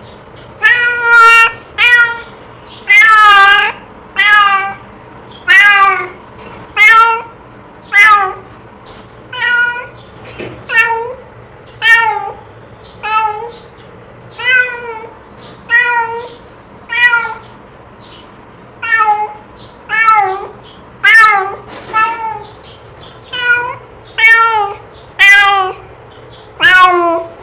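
A cat meowing over and over, about one short meow a second, each call bending up and then down in pitch.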